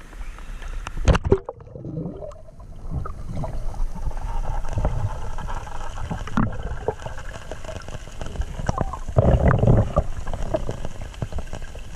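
Camera plunging under a river's surface with a splash about a second in, then muffled underwater sound: gurgling and bubbling with scattered knocks, and a louder rush of bubbling about nine seconds in.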